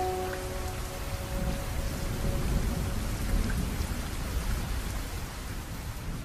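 Steady rain with a low rumble of thunder that swells in the middle and fades toward the end. A last note of the background music rings out and dies away in the first two seconds.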